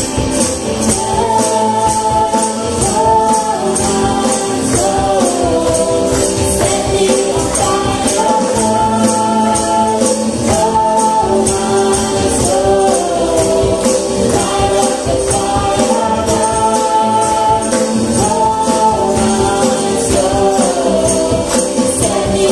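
Live church worship band: several voices singing a melody together over the band, with a steady percussion beat ticking through.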